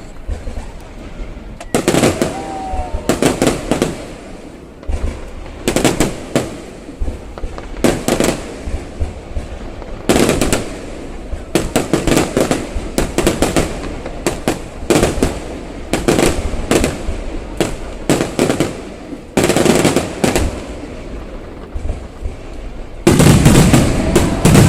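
Aerial fireworks bursting: a long run of sharp bangs and crackling volleys, some rolling in rapid clusters, with the loudest dense barrage near the end.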